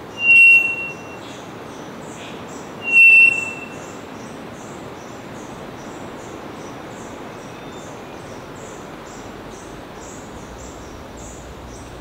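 Male three-wattled bellbird calling twice, about two and a half seconds apart. Each call is a sharp click followed by a loud, steady whistled note of about half a second. A faint high insect chorus pulses in the background.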